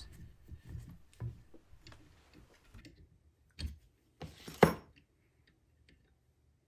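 Small metallic clicks and ticks of a threading die being worked by hand on a 1/4-20 bolt held in a bench vise, chasing the threads clear of old bedding compound. About four and a half seconds in, a sharp metal clack, the loudest sound, as the die stock is set down on the bench.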